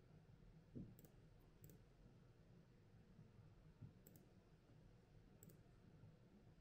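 Near silence: room tone with a few faint, short, high clicks scattered through it and two soft low thumps.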